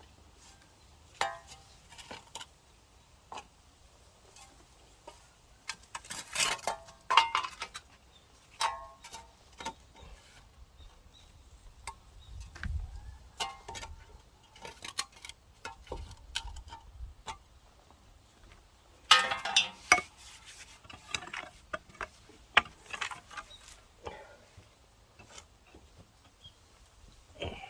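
Irregular clinks and knocks of hard objects being handled, with louder spells of scraping about six seconds in and again about nineteen seconds in.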